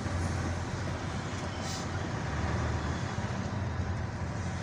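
Engine running steadily with tyre and road noise, heard from inside the cab of a vehicle driving through city traffic.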